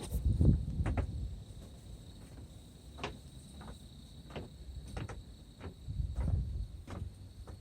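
Steady high drone of insects such as crickets, with irregular sharp clicks and crunches, and low rumbling bursts about half a second in and again about six seconds in.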